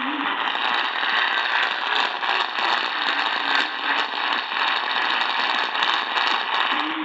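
Radio static: a steady hiss with frequent crackles running through it, the sound of a weak, distant AM signal buried under noise.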